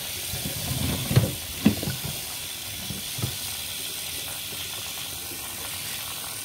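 Steady hissing of water or steam, with a few short knocks and clatters in the first few seconds, the sharpest about a second and a half in.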